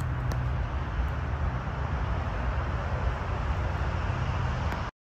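Steady outdoor background noise, a low rumble under a hiss, that cuts off suddenly near the end.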